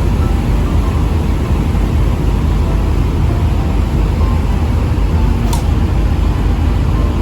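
Steady low rumble of a moving vehicle's engine and running noise, with one brief click about five and a half seconds in.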